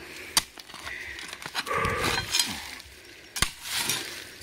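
A hunting dog digging into an armadillo burrow in hard ground: scraping and scratching at the earth, with scattered sharp knocks and a louder stretch of scratching about two seconds in.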